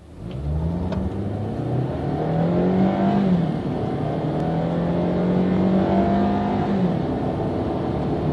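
A Hyundai Santa Fe Sport's 2.4-litre inline-four engine accelerating hard at full throttle, heard from inside the cabin. Its pitch climbs and holds high, then drops abruptly about three seconds in and again near seven seconds as the automatic transmission upshifts, and it climbs again after each shift.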